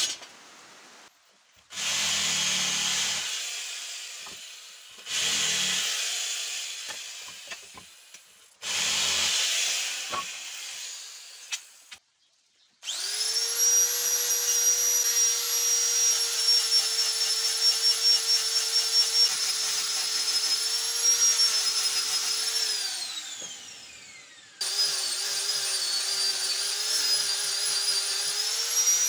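Handheld angle grinder with a sanding disc sanding wood: a steady high whine that starts a little before halfway and sags slightly in pitch as it bears on the workpiece, winds down with a falling whine about three quarters through, then restarts. Earlier, three bursts of rough noise, each starting suddenly and fading away over a few seconds.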